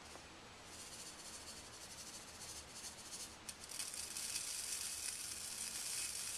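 Caviar nail micro beads pouring from a small cup onto a nail coated in wet polish, a fine steady hiss of tiny beads that grows louder about four seconds in.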